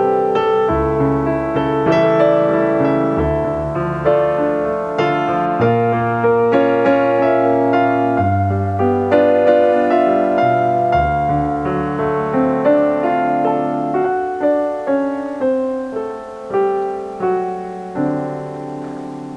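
Background piano music: chords and melody notes are struck and left to ring. In the last few seconds, single notes come one after another, each dying away.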